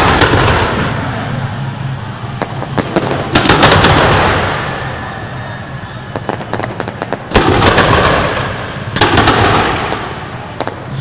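Aerial firework shells bursting in a display: several loud bursts, each dying away over a second or two, with quick sharp crackling pops between them.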